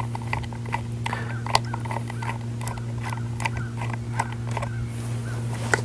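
Small irregular clicks and ticks of metal-on-metal handling as the screws holding a CVA Apex rifle's fore end are backed out, with short squeaks among them. A steady low hum runs underneath.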